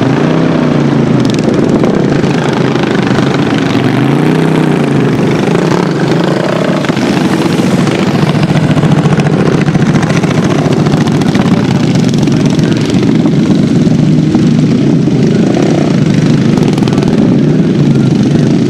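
Several racing lawnmowers' small engines running at full throttle together, their pitch rising and falling a few times in the first five seconds, then holding a loud, steady drone.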